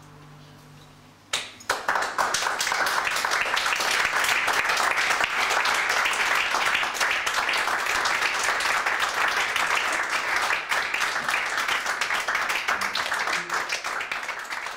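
The last chord of two archtop jazz guitars ringing out faintly, then a small audience clapping, starting about a second in and thinning out near the end.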